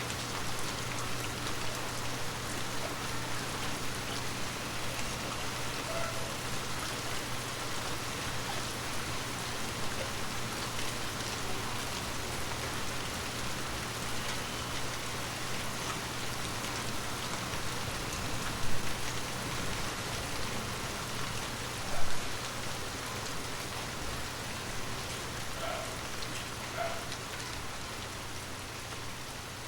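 Steady rain falling on forest leaves, an even patter of many drops, with two brief louder taps near the middle.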